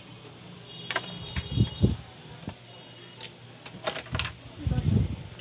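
Scattered clicks and a few dull thumps of tools being handled and set down on a workbench.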